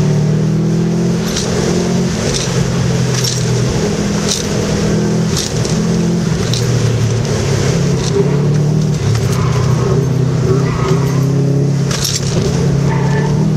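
2003 Subaru WRX's turbocharged flat-four engine pulling hard through an autocross run, revs rising and falling as the car works through the cones, with steady tyre and road noise underneath.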